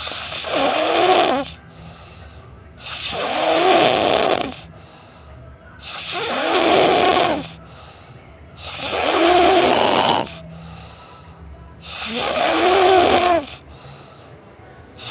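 A sleeper snoring loudly and regularly: five long snores, one about every three seconds, each lasting about a second and a half with a rattling, pitched drone, and quiet breathing in between.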